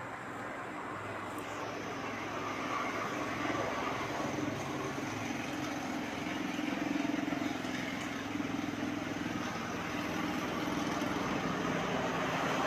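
Electric fan motor running with a steady low hum and an even whoosh of noise.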